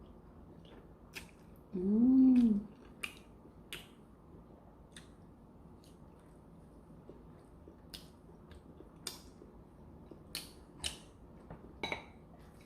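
Close-up mukbang eating sounds of Korean black bean noodles: scattered wet mouth clicks and smacks while chewing. About two seconds in there is a short hummed "mm" that rises and falls in pitch.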